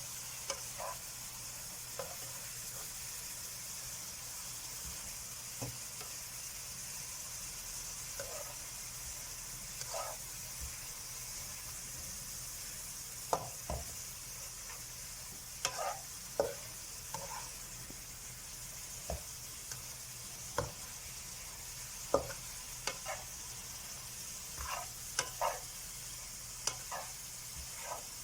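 Leeks and tofu sizzling steadily as they are stir-fried in a pan with soy and oyster sauce, while a spatula clicks and scrapes against the pan at irregular moments.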